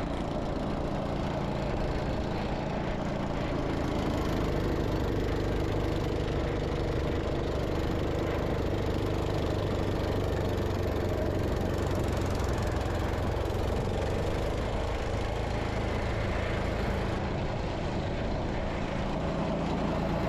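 Gravely C10 walk-behind tractor's Kohler engine running steadily, driving its snow blower attachment through about six inches of snow.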